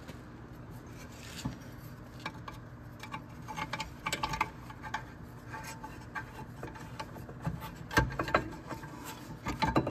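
Irregular metal clinks, taps and scraping as a rear brake caliper bracket is fitted onto the knuckle and its mounting bolts are started by hand. The loudest knock comes about eight seconds in.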